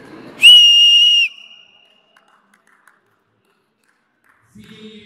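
A single loud, steady, high-pitched whistle blast lasting about a second, sounded about half a second in.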